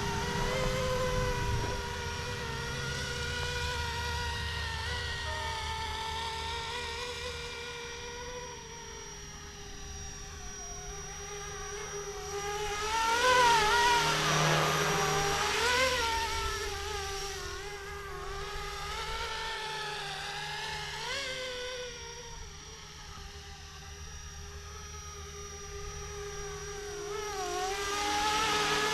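Flishrc Little Bird 450 RC helicopter in flight, its motor and rotor whine wavering up and down in pitch as it manoeuvres. It grows louder as it passes close, from about halfway through and again near the end.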